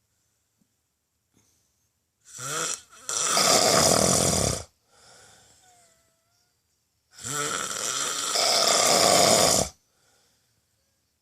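A person snoring heavily in sleep: two long, loud snores about five seconds apart, with a fainter breath between them.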